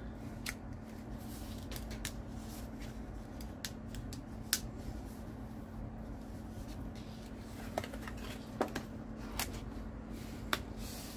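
Cardstock being pressed down and handled by hand on a tabletop: scattered light clicks and paper rustles, over a steady low room hum.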